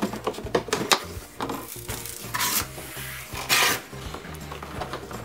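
Cardboard box flaps and packaging scraping and rubbing as a hamster wheel is pulled out of its carton. There are small clicks in the first second and two louder scrapes about two and a half and three and a half seconds in.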